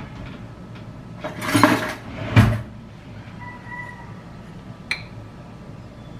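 Kitchen handling of a metal spoon and a glass jar of salt: a brief scraping rustle, then a sharp knock about two and a half seconds in, and a light click near five seconds as the spoon goes into the jar.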